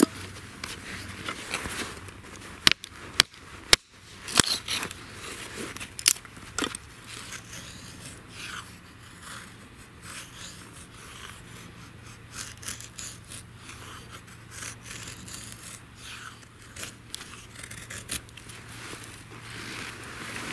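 Morakniv knife shaving thin curls off a small wooden stick held against a wooden stump, making a feather stick: a run of short scraping strokes, with a few sharp knocks in the first seven seconds.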